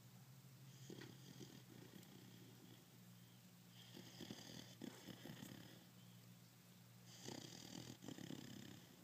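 Five-month-old pit bull puppy snoring faintly, with a raspy snore on each breath about every three seconds.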